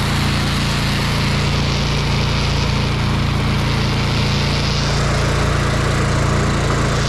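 A 5.5 gallon-per-minute gas pressure washer running steadily, its small engine humming without a break under the noise of the spray.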